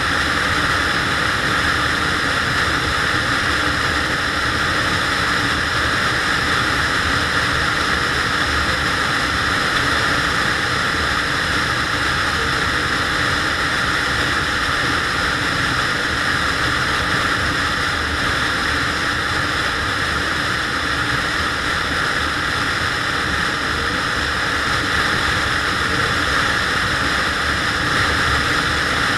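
Steady wind rush over the microphone with the engine of a SYM Joymax GTS 250 EVO maxi-scooter running at an even cruising speed on the open road.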